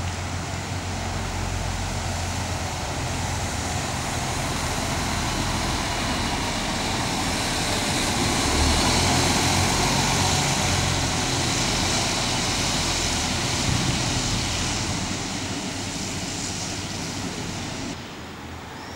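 City bus engine and road noise as the bus drives past, growing louder to a peak about halfway through and then fading. Near the end it cuts suddenly to quieter street sound.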